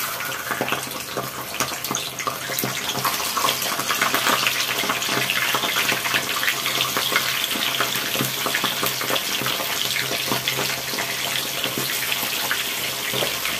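Whole Indian mackerel (ikan kembung) frying in hot oil in a wok: a dense sizzling crackle that starts suddenly as the first fish goes in and grows a little louder as more fish are laid in.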